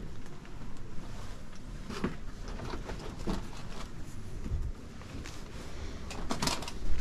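Indoor handling noise: scattered light knocks and rustles of things being moved about, with a louder clatter near the end.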